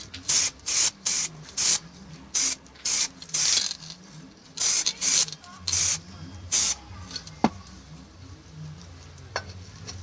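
Aerosol can of black acrylic spray paint hissing in about eleven short bursts over the first seven seconds while a coat of paint goes on. A sharp click follows, then a fainter one.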